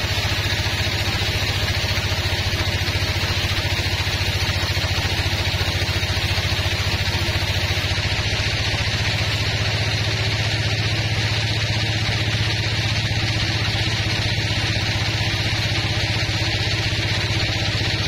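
Band sawmill running and cutting a large log, a steady low motor hum with an even hiss from the blade in the wood.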